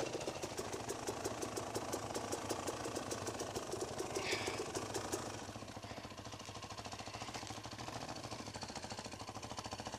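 Off-road dirt-bike engine idling with an even, rapid pulse, growing quieter about halfway through.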